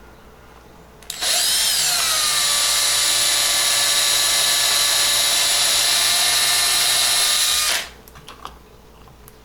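Small electric drill bit drilling out the metal rivet post of a die-cast model car. It gives a steady high whine for about six and a half seconds and then stops, followed by a few faint clicks.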